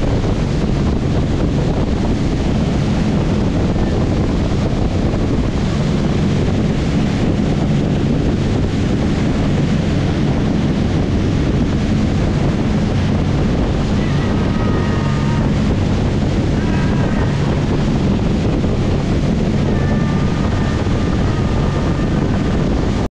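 Wind buffeting the microphone over the rush of a cruiser's wake spray, with the steady drone of the Sea Ray 400 Sundancer's twin engines at cruising speed. The sound holds level throughout.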